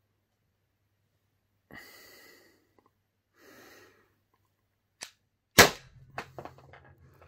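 Two soft breaths, then about five seconds in a faint click and one sharp crack from an 11-joule Umarex HDR 50 / NXG PS 100 CO2 revolver firing a rubber ball. A few small knocks and rattles follow the shot.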